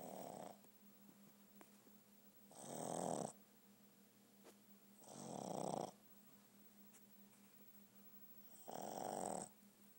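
Boston terrier snoring in its sleep: the end of one snore, then three full rasping snores about every two and a half to three seconds, each lasting under a second.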